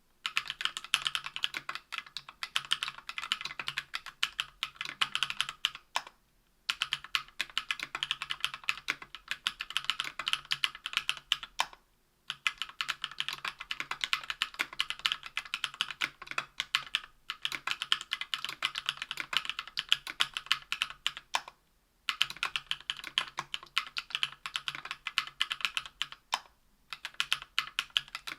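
Typing on a Tofu 60% aluminium keyboard with lubed JWK CW 65 g linear switches on an aluminium plate under GMK keycaps: a quick, steady run of keystrokes, broken by a few short pauses.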